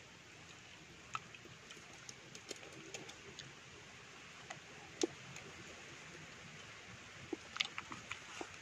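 Quiet eating sounds: scattered faint mouth clicks and smacks as a person chews pieces of santol fruit, the sharpest click about five seconds in and a few more near the end, over a faint steady hiss.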